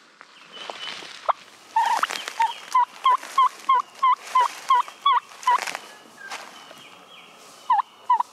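A series of about a dozen turkey yelps, about three a second, each a short note with an upward hook, then two more near the end, over footsteps in dry leaf litter.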